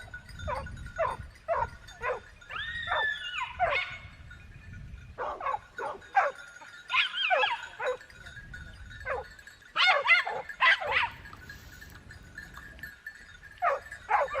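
A dog barking in quick runs of short, high yaps, with a few longer wavering whine-like calls between the runs. There are short pauses between the groups.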